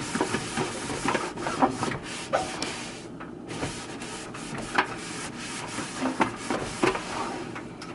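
Wiping the inside of a microwave oven: steady rubbing strokes over the surface, with short squeaky scrapes and a brief pause about three seconds in.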